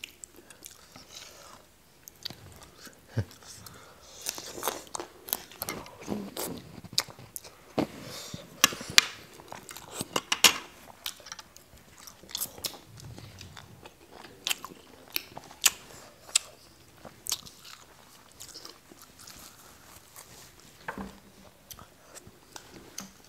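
Two people chewing and biting into a spicy noodle salad with shrimp, with irregular sharp mouth clicks and crunches.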